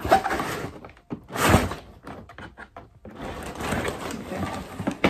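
Scissors cutting through heavy packing tape on a cardboard box and the tape being torn away. There is a short loud rip about a second and a half in, then a longer stretch of tearing and rustling near the end.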